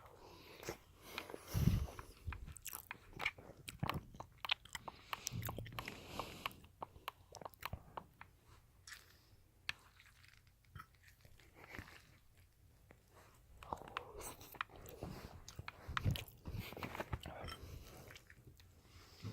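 A person chewing macaroni and cheese close to the microphone: mouth sounds with many small clicks, and a louder low thump about one and a half seconds in and another about sixteen seconds in.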